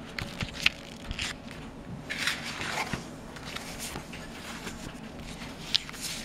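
Paper leaflets rustling and sliding against each other as they are handled and turned over, with two sharp clicks, one about half a second in and one near the end.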